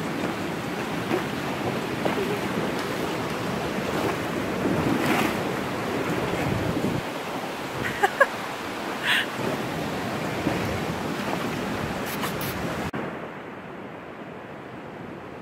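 Rushing stream water and splashing as a horse wades through a shallow rocky stream, with a few sharp knocks about eight and nine seconds in. Near the end it cuts suddenly to a quieter, steady rush.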